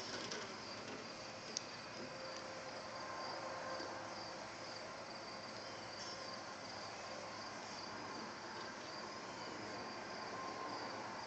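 Faint, steady insect chirping, a high pulsing trill that repeats evenly throughout, with one short sharp tick about one and a half seconds in.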